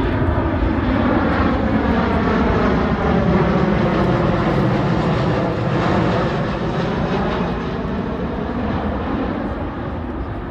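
Boeing E-7A Wedgetail, a 737-based airliner with twin CFM56 turbofans, flying past with a steady jet engine noise whose pitch pattern sweeps as it passes. It fades gradually over the second half.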